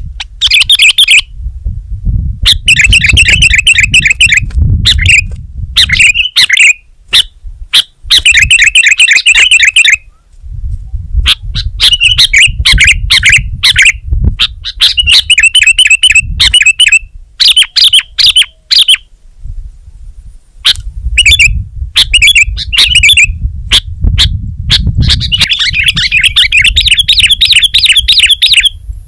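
Sooty-headed bulbul (kutilang) singing: loud bursts of fast, chattering high notes, each a second or two long, repeated with short pauses. A low rumble sits under the song phrases.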